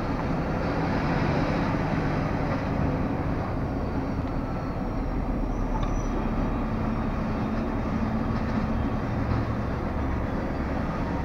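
Heavy truck's diesel engine running at low speed as the truck drives slowly along a rough track, heard from inside the cab as a steady rumble.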